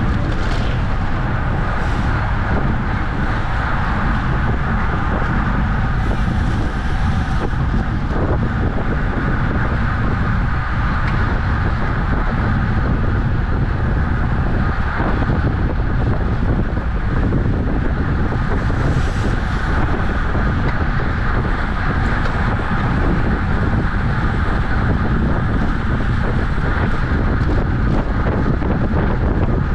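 Wind rushing over the microphone of a racing cyclist riding at speed: a steady low rumble with a steady whir above it.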